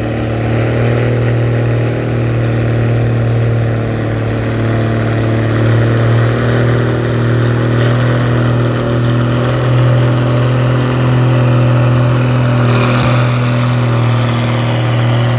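Farm tractor engine running hard under heavy load, pulling a weight-transfer sled, at a steady, nearly constant pitch.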